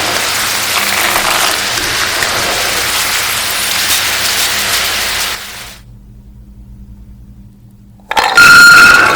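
Batter-coated chickpeas deep-frying in hot oil, a steady loud sizzle that fades out after about five seconds. Near the end comes a short, loud burst with ringing tones.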